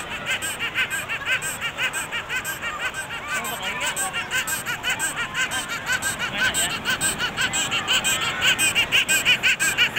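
A young child laughing, a rapid, unbroken string of high giggles that grows louder near the end.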